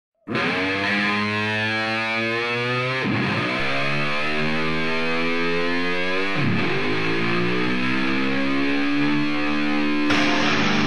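Music: a distorted guitar starting a moment in, holding long ringing chords that change about every three seconds, then breaking into fast strumming near the end.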